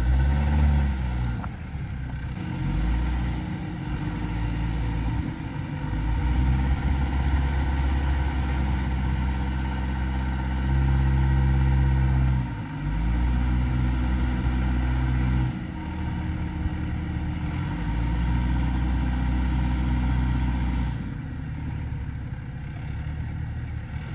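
Engine of a 2024 Toyota Tacoma TRD Off-Road pickup pulling at low speed up a rough sandy wash. It holds a steady note for several seconds at a time, dropping off and picking up again about four times.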